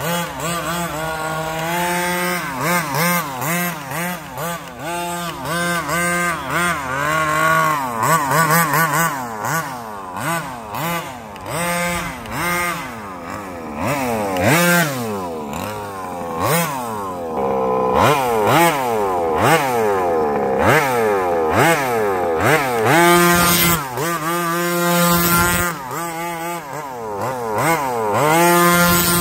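The 30cc two-stroke engine of a 1/5-scale HPI Baja 5T RC truck revving up and down again and again as it is driven, its pitch rising and falling with each burst of throttle. It drops back to a steady idle a few times near the end.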